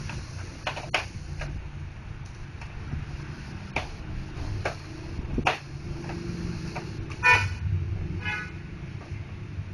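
Two short vehicle-horn toots about seven and eight seconds in, the first the loudest sound. Under them run a steady low traffic rumble and scattered sharp clicks and knocks, typical of plastic printer parts being handled during reassembly.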